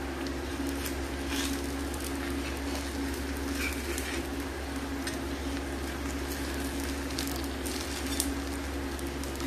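Jaggery-and-flour pude batter sizzling and crackling on a hot griddle, with irregular crackles over a steady low hum.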